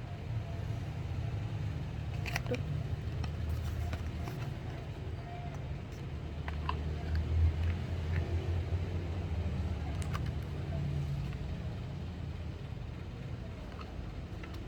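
Low steady rumble of road traffic that swells around the middle, with a few faint clicks.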